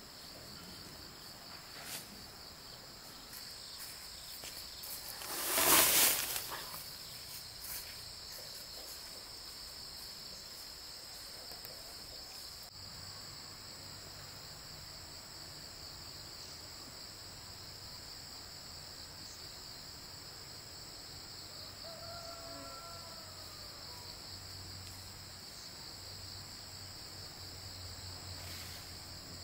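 Steady high-pitched chorus of insects chirring, with one loud rush of noise lasting about a second around six seconds in.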